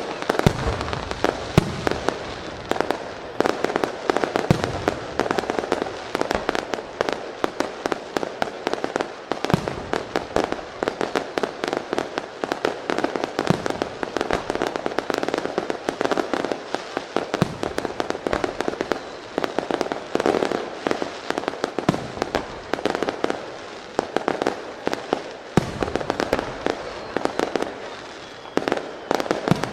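Aerial fireworks display: dense, continuous crackling, with a deep shell burst every few seconds.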